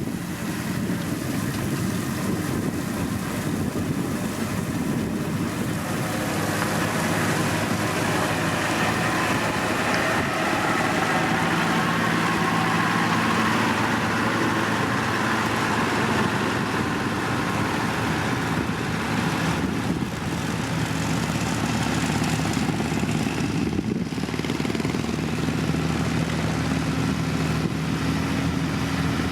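Diesel engine of heavy road-construction machinery running steadily under load. A mechanical rumble swells a little in the middle.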